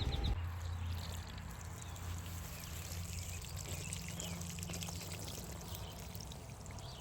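Water spraying steadily out of a cut in a garden hose.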